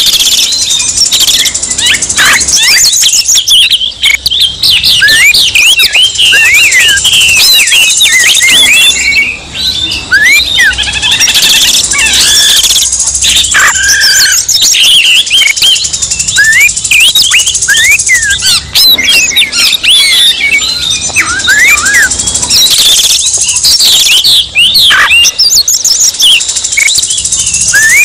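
Oriental magpie-robins (kacer) singing in agitated, fighting-mood song, several birds layered together: a dense, continuous stream of quick varied whistles and chirps, over a steady high hiss.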